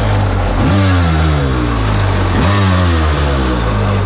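Engine revving sound, blipped three times. Each blip climbs sharply in pitch and then slowly falls away, over a steady low drone.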